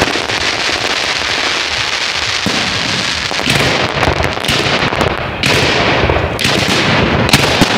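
Fireworks salute going off: continuous dense crackling and popping, with several sharper bangs.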